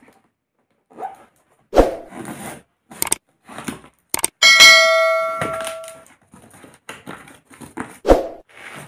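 Cardboard parcel being handled and opened, with rustling and a couple of sharp thumps. About four and a half seconds in, a click is followed by a loud bell ding that rings out for about a second and a half: the sound effect of a subscribe-button animation.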